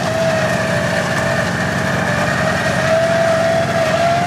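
Off-road recovery rig running steadily with a steady whine that rises slightly near the end, as a winch pulls a rolled rock buggy back onto its wheels.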